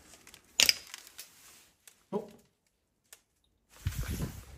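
A single sharp click or knock about half a second in, and a brief low rumble near the end. The object dropped into the drain makes no audible landing sound.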